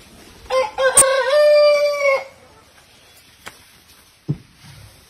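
A rooster crowing once, about half a second in: a stepped call that ends on a long held note. A sharp click cuts through it, and a short low thud follows near the end.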